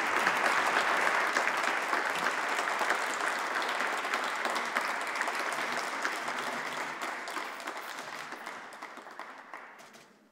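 Audience and stage guests applauding, a dense patter of clapping that dies away over the last couple of seconds.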